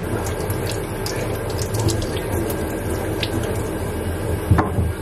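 Kitchen tap water running and splashing over hands as a peeled potato is rinsed, with small ticks of drips and handling, and a single knock about four and a half seconds in.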